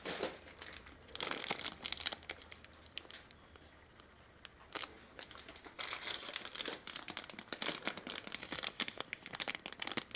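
Crinkling of the clear plastic bags around a plastic model kit's parts sprues as they are handled, in two long spells with a single sharp click between them.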